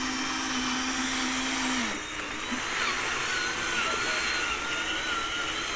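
Electric drive motors of a radio-controlled toy crawler bulldozer whining as it tracks and pushes dirt: a steady low hum that stops about two seconds in, then a higher, wavering whine from about three seconds.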